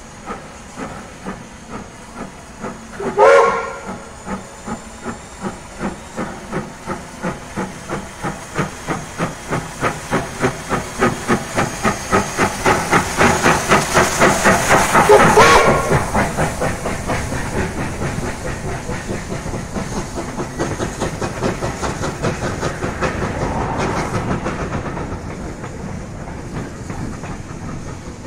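Ww 644, a New Zealand Ww class 4-6-4T steam tank locomotive, pulling away with a train: its exhaust chuffs in a steady beat that quickens as it gathers speed, and is loudest as it passes close by. Its whistle gives a short blast about 3 seconds in and a louder one about 15 seconds in, then the beats fade as it draws away.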